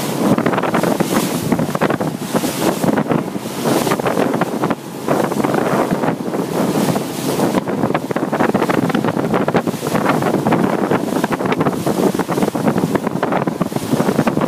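Wind buffeting the microphone in gusts over the rush of water along the hull of a boat under way on open sea.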